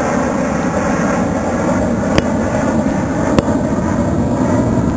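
Aircraft passing overhead, a loud steady rush of engine noise. Two short sharp clicks come about two seconds and three and a half seconds in.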